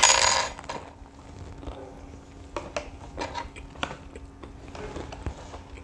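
Biting into a KFC Zinger burger, loud for about the first second, then chewing with scattered soft clicks.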